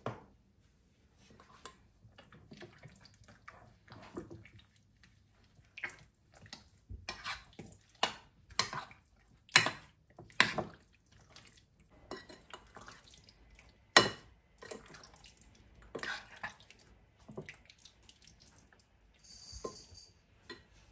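Metal spoon stirring chicken pieces through a wet yogurt-and-oil marinade in a glass bowl: irregular squelching with sharp clinks of the spoon against the glass, the loudest about ten and fourteen seconds in.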